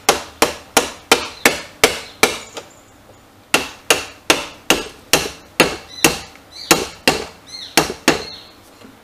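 Sharp metal taps, about two or three a second with a short pause about two and a half seconds in, as a screwdriver set on the end of a motorcycle's rear axle is struck with a spanner to drive the axle out of the hub.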